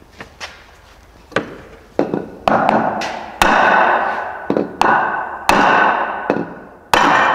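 Hammer blows on the head of a bolt set in a mower deck spindle shaft, driving the shaft down out of its bearing housing. A few light taps come first, then harder strikes about every second, each leaving the steel deck ringing.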